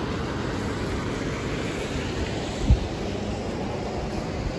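Wind buffeting a phone's microphone: a steady rushing rumble with a hiss above it, and one brief louder thump of a gust a little past halfway.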